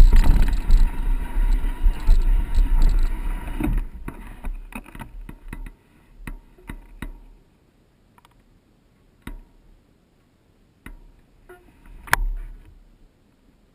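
Wind and ride noise rumbling on the camera's microphone during a mountain-bike ride, cutting off about four seconds in; after that, only scattered sharp clicks and a few soft knocks.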